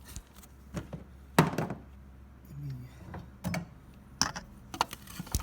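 Scattered sharp clicks and knocks of hand tools against metal during work on a seized exhaust manifold bolt. The loudest knock comes about a second and a half in.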